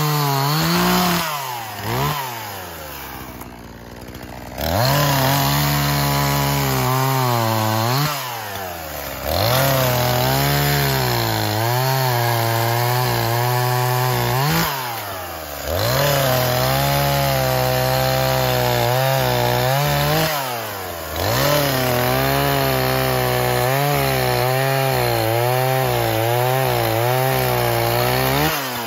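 Echo CS-4510 two-stroke chainsaw cutting through a log. The engine holds at full throttle through each cut and drops back to a lower speed between cuts several times.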